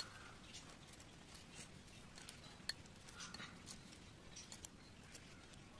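Spoon stirring cut star fruit with salt and chilli in a small ceramic bowl: faint scattered clicks and taps of the spoon against the bowl, one a little louder about halfway through.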